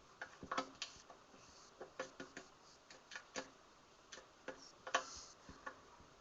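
Small screwdriver tightening wires into the screw terminals of a power supply board: light, irregular clicks and taps, about two or three a second, with a louder click about five seconds in.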